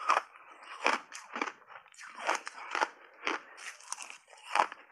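Close-miked crunching of ice chunks coated in matcha and milk powder being bitten and chewed, with sharp crunches about twice a second.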